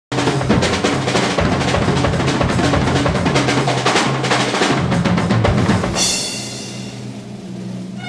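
Drum kit played fast and busy, rapid hits over a steady low bass note, stopping about six seconds in on a final hit that rings and fades.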